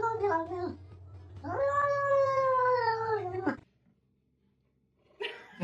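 A cat yowling: the tail of one drawn-out call, then a second long yowl of about two seconds that drops in pitch as it ends.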